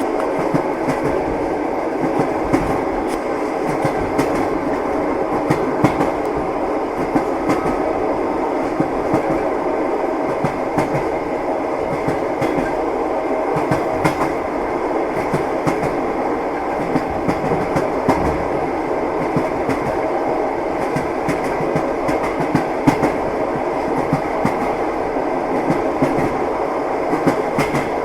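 Train rolling along the track: a steady rumble with the repeated knocking of wheels over the rail joints.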